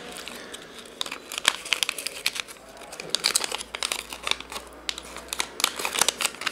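Irregular crinkling and crackling of a silvery anti-static plastic bag handled by hand as a small sensor is slipped into it.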